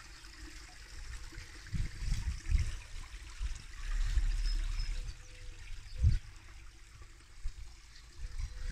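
Water trickling steadily, with gusts of wind buffeting the microphone now and then.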